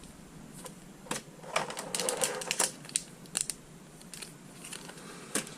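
Booster packs and box packaging being handled by hand: a scatter of sharp clicks and crinkles, busiest between about one and a half and three seconds in.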